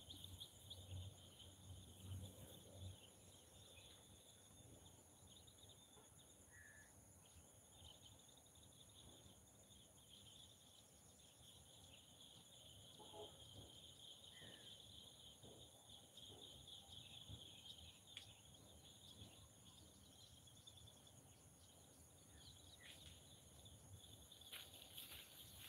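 Faint, steady insect chorus, a continuous high trill, over near-silent outdoor background.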